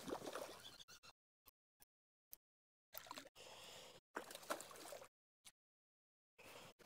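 Faint water gurgling and sloshing in short stretches, with a few light clicks and knocks.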